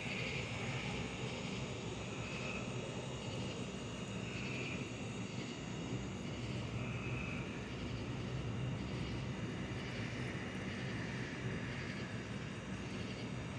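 Steady low mechanical drone with no distinct events, holding an even level throughout.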